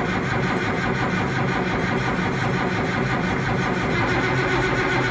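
Allis-Chalmers 210 tractor's diesel engine being cranked over by its starter with the fuel injection pump shut off, turning steadily without firing, to get oil moving through the engine before it is given fuel.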